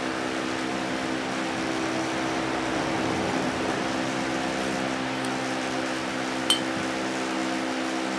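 Steady mechanical hum of a running fan-type machine, holding several level pitches. A single light metallic click about six and a half seconds in comes from steel dial calipers and a ball bearing being handled.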